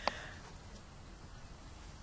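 Faint, steady background noise with a brief click right at the start.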